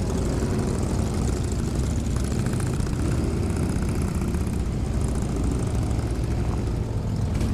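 Harley-Davidson Sportster air-cooled V-twin engine running steadily, heard with a constant rush of wind and spray noise over it.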